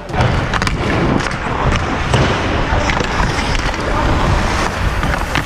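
Hockey skates striding and carving on ice at speed, with wind rushing over the helmet camera's microphone and a few sharp knocks.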